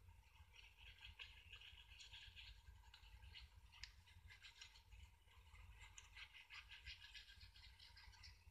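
Near silence: faint room tone with a low hum and light, rapid scratchy ticking.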